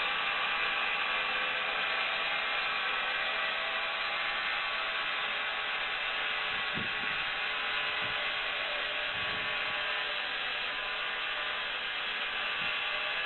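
Sawmill machinery running steadily with an even whirring noise, with a few dull knocks about halfway through and once near the end.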